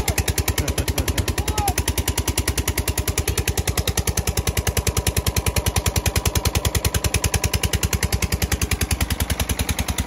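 Engine of an irrigation water pump running steadily, with a rapid, even beat that does not change.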